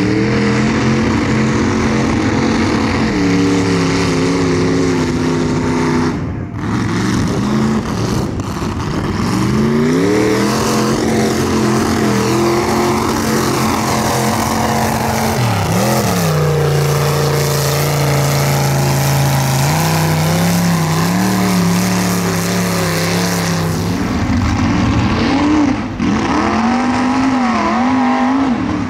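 Lifted mud trucks on big paddle tyres running hard through a mud pit: the engine revs climb and hold at high throttle, ease off and climb again, while the tyres churn and sling wet mud. Near the end a second truck's engine takes over with a wavering pitch.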